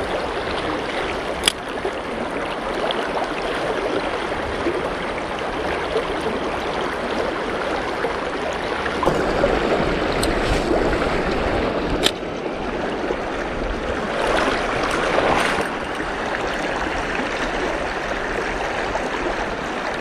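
Mountain stream flowing, a steady rush of water, with two brief sharp clicks: one about a second and a half in and another about twelve seconds in.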